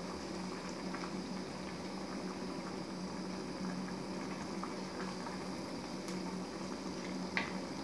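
Thick fish curry bubbling at a simmer in a stainless steel pot as a wooden spoon stirs it, with a steady low hum underneath. One light knock comes near the end.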